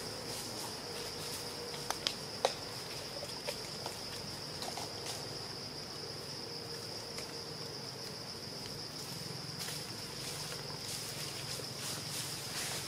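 Steady high-pitched insect chorus, with a couple of sharp clicks about two seconds in.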